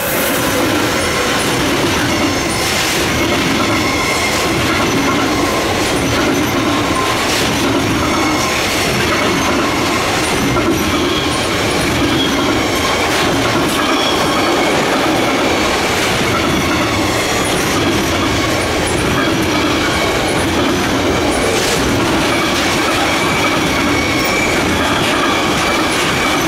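Container freight train's flat wagons running past: a steady noise of wheels on rail, with faint thin wheel squeal and a few short clicks.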